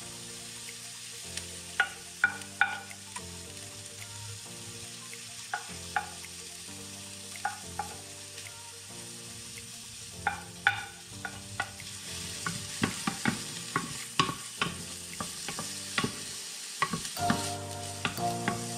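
Chopped onion and chilies sizzling in hot oil in a stainless steel pot, with a wooden spoon stirring and tapping against the pot. The taps are sparse at first and come thick and fast from about two-thirds of the way through.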